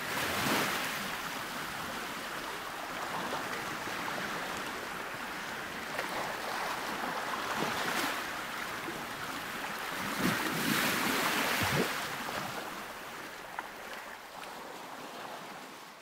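Sea waves washing onto the shore, swelling and fading every few seconds, with wind on the microphone.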